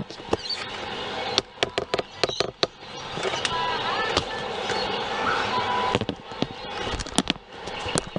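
Handling noise from a camera being adjusted on its tripod: a run of sharp clicks and knocks, a quick cluster between one and three seconds in and more near the end.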